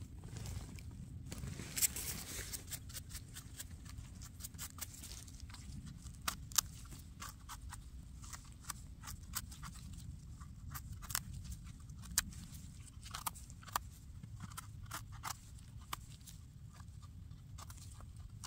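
Rustling of twigs and forest litter as a porcini mushroom is lifted from the ground, then a small knife scraping and cutting the dirt off its stem: a scattered run of short sharp scrapes and clicks.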